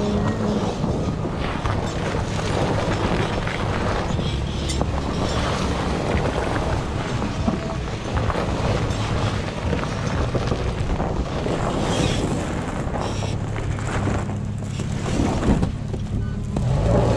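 Off-road truck driving along a snowy trail: engine running steadily with tyre and wind noise over the microphone.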